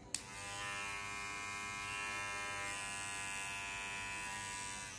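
Kemei KM-6559 rechargeable hair trimmer switched on with a click, its motor and blades then running with a steady buzz.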